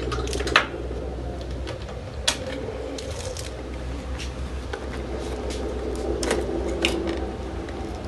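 Scattered sharp clicks and taps from a microwave oven control circuit board and its wires being handled, over a steady low hum.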